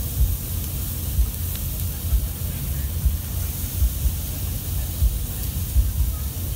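Jerk chicken sizzling with a steady hiss on a hot grill as it is basted with sauce, under a gusting low rumble of wind buffeting the microphone.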